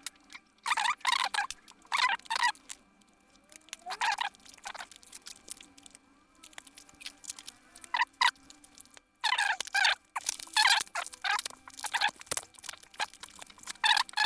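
Plastic product packaging crinkling and rustling in irregular bursts as it is handled and pulled open by hand.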